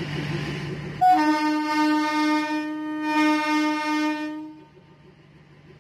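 Locomotive horn sounding one long, steady blast starting about a second in, over the low rumble of a running engine; the blast stops near the end and the sound drops away.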